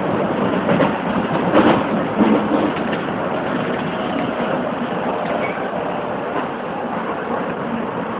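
Keisei 3700 series electric train running at speed, heard from inside the front car: a steady rumble of wheels on rail, with one sharp clack about one and a half seconds in and a fainter one shortly after.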